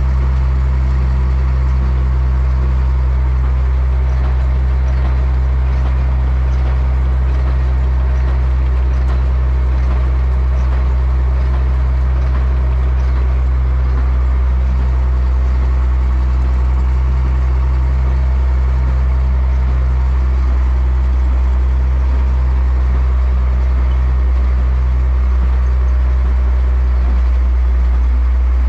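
Tractor diesel engine running at a steady speed, heard from inside the cab with a constant low drone and the rattle of the cab.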